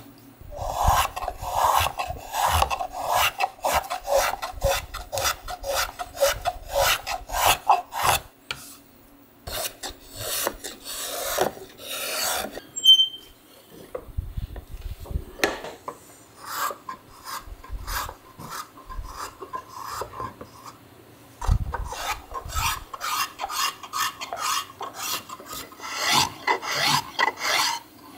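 Hand tools rasping and shaving the edge of a cherry wood disc: quick repeated scraping strokes, several a second, broken by two short pauses about a third and half of the way through. Near the end a small brass spokeshave works the rim.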